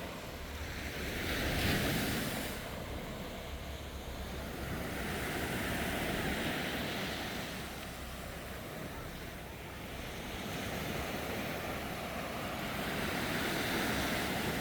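Sea waves breaking and washing up the shore, the surf swelling and easing three times, with a steady low rumble of wind on the microphone underneath.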